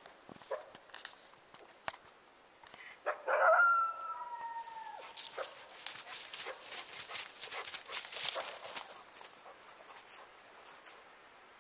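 Coyote vocalizations: one howl rises and holds about three seconds in, then breaks into a few seconds of rapid, high yipping.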